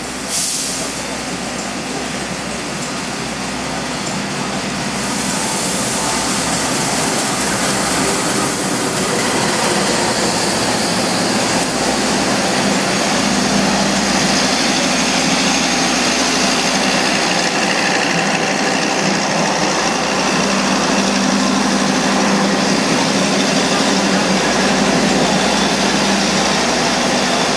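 Diesel engine of the Argo Cheribon train running close by, a steady mechanical hum that grows louder over the first few seconds and then holds steady, with a short click right at the start.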